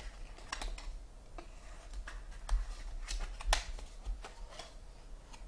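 Trading card box being unwrapped and opened by hand: scattered sharp clicks, crinkles and taps of cardboard and wrapper, over a steady low hum.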